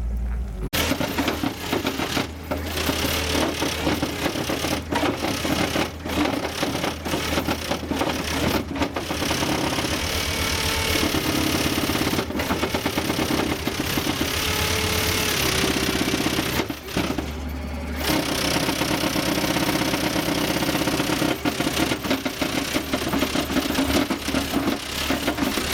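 Skid steer loader running while its slotted screening bucket shakes a load of stones and dirt, a dense steady rattle of rocks against the steel grate as the soil sifts out through the floor.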